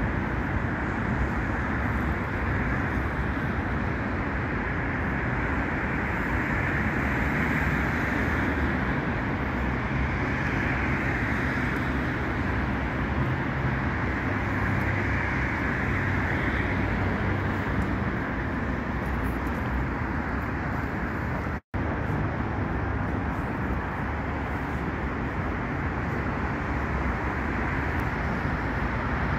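Steady road traffic noise: the continuous hum and rumble of cars on a city street. The sound cuts out for an instant about two thirds of the way through.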